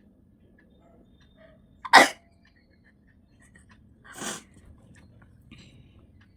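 A person sneezing twice, induced by tickling the inside of the nose: a loud, sharp sneeze about two seconds in, then a softer one about two seconds later.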